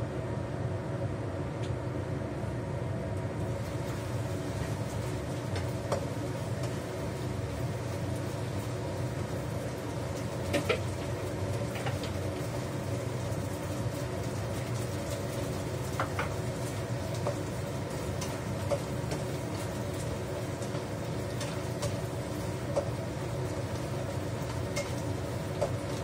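Kitchen range hood exhaust fan running with a steady hum, with now and then a sharp clink of a cooking utensil against the wok.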